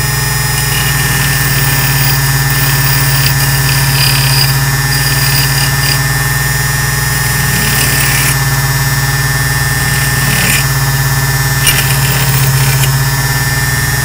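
Taylor key cutting machine's small electric motor running with a steady hum, while a freshly cut key is pressed to its wire brush in several short, high-pitched scraping bursts to clean off the burrs. The brush is worn and due for replacement.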